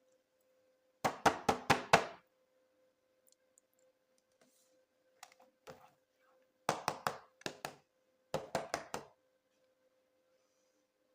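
Clusters of quick, hard knocks, four or five at a time in rapid succession, repeating several times with pauses between, over a faint steady hum.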